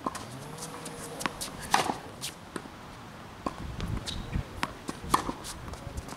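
Tennis ball being struck by racket strings and bouncing on a hard court: about ten sharp, hollow knocks at uneven intervals, the loudest near two seconds and five seconds in.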